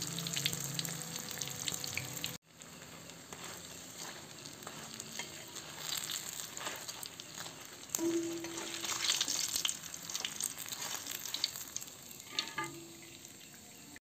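Spring rolls deep-frying in hot oil in a wok, sizzling and crackling, while a metal spatula turns them in the oil. The sound cuts out briefly about two and a half seconds in, then the frying resumes.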